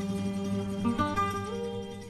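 Background music led by plucked acoustic guitar, with separate notes and a steady low tone under them.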